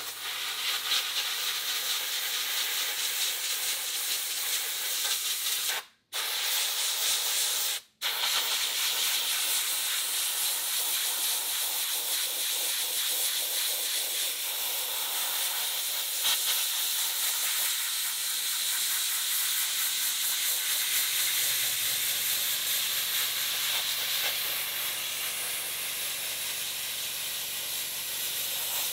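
Handheld abrasive blaster driven by compressed air, blasting coal slag grit against the rusty underside of a steel truck hood: a steady hiss of air and grit. The hiss breaks off twice briefly in the first third, and a low steady hum joins about two-thirds of the way through.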